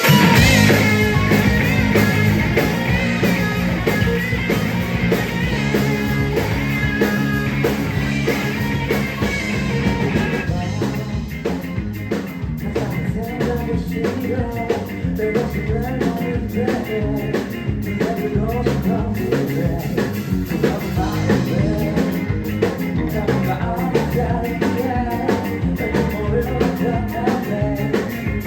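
A rock band playing a song. Sustained guitar and melody lines open it, and the drums come in with a steady beat about ten seconds in.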